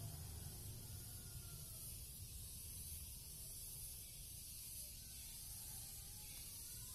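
Quiet background: a steady hiss with a low rumble underneath, and a few faint, thin whistling tones in the first three seconds.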